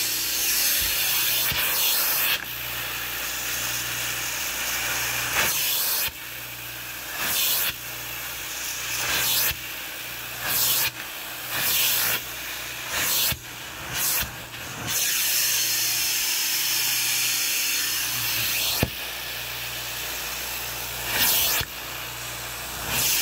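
Carpet extractor's hand tool spraying and sucking on carpet: a steady hiss of suction over a low steady hum. In the middle comes a run of short louder surges, about a second apart, as the tool is worked over a spot to pull out the slime.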